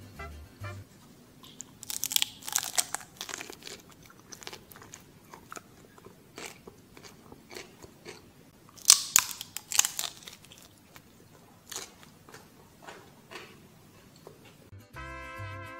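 Someone biting into a crisp baked wonton-wrapper taco cup and chewing it. There are two loud crunching bites, one about two seconds in and another about nine seconds in, each followed by a run of crisp crunches, with softer crunches in between.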